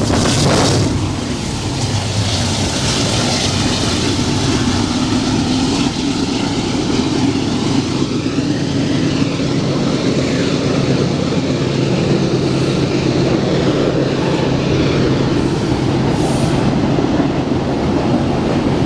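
Double-stack freight train's cars rolling past at speed: steady, loud noise of wheels on rail.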